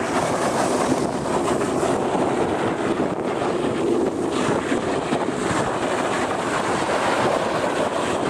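Steady wind rush buffeting the microphone of a fast-moving camera, mixed with the rolling roar of longboard wheels on asphalt.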